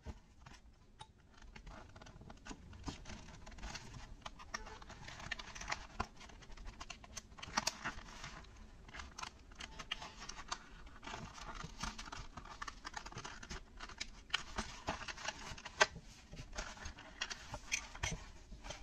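Hobby knife blade cutting a clear plastic blister pack away from its cardboard card: an uneven run of small scratches, clicks and crackles of the plastic.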